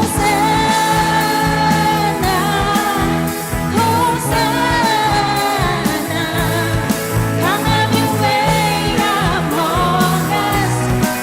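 Live worship band playing a steady beat, with voices holding long sung notes.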